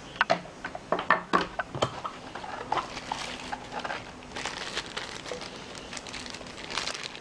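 A few light knocks and clicks as a power adapter and its cord are set down on a wooden table, then a thin plastic bag crinkling as it is handled from about a third of the way in.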